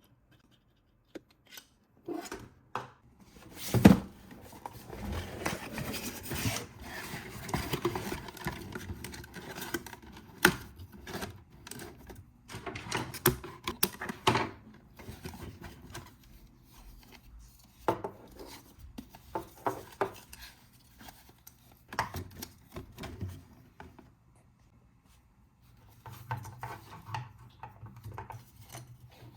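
Toy packaging being handled and opened by hand: rubbing, scraping and rustling with scattered clicks and knocks. The loudest knock comes about four seconds in, and there is a short pause near the end.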